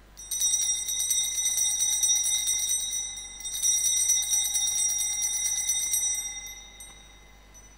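Altar bells, a cluster of small hand bells, shaken in two bright ringing bursts that each fade away. They mark the elevation of the chalice at the consecration.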